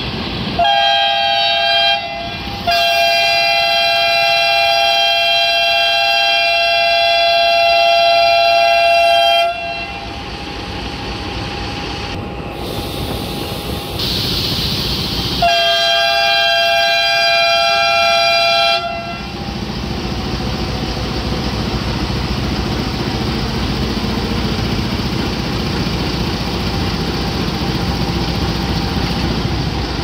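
Pakistan Railways ZCU-30 diesel locomotive's air horn sounding in three blasts: a short one, a long one of about seven seconds, then one of about three seconds. After the horn the locomotive's diesel engine runs with a steady low rumble as it rolls past.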